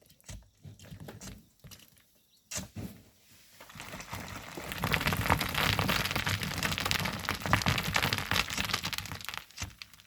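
Volcanic sand and stones being worked by hand: a few scattered knocks and clicks, then from about four seconds a dense gritty crunching and scraping that lasts several seconds.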